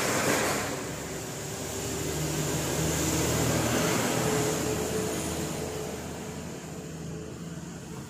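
An engine running with a steady hum and hiss, swelling about three seconds in and fading toward the end, like a vehicle going past.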